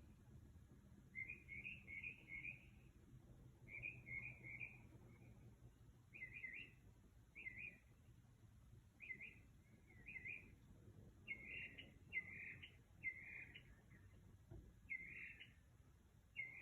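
A bird singing a series of about a dozen short, varied chirping phrases, fairly high-pitched, with brief gaps between them; faint.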